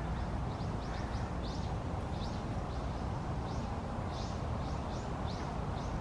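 Hawfinch giving a run of short, high, sharp calls, about two a second, over a steady low background rumble.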